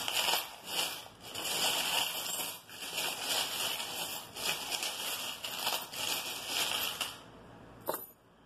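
Small metal charms jingling and rattling as they are shaken in the hands for about seven seconds, then a single soft clatter as they are dropped onto a cloth-covered table near the end.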